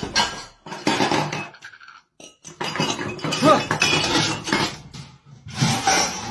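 Metal pan and wok lids clattering, clinking and scraping as a cat steps and scrambles over them on a stovetop, in irregular knocks.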